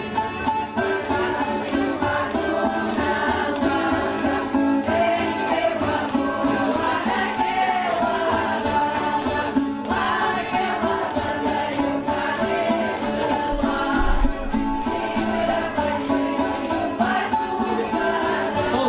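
Background music with singing voices, at a steady level.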